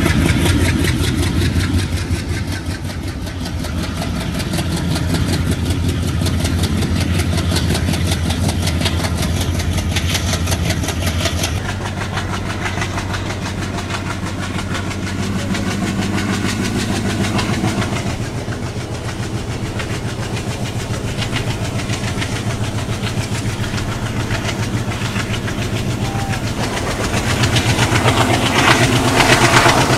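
ALCO diesel locomotive engine working hard at the head of a passenger train, pulling away from a station with a steady deep drone, heard from a coach doorway along with the train running on the rails. The sound changes abruptly about twelve seconds in.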